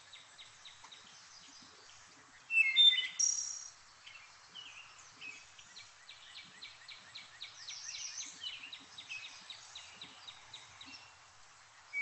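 Recorded wood thrush song played through a video call: one loud phrase about two and a half seconds in and softer phrases later, over a constant background of other birds chirping quickly.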